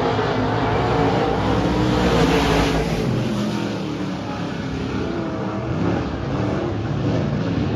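Dirt-track race car engines running as several cars go past on the dirt oval, their pitch rising and falling. Loud at first, easing about four seconds in and swelling again around six seconds as more cars come by.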